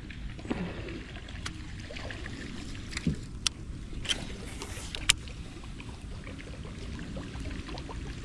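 Fishing from a small boat: steady low rumble with water lapping at the hull, broken by a few sharp clicks and a brief whirr about four to five seconds in as a baitcasting reel is cast and worked.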